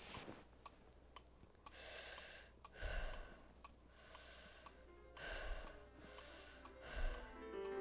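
Slow, heavy breaths and sighs from a cartoon character lying face-down on the floor, over a faint, even ticking about three times a second. Piano music starts right at the end.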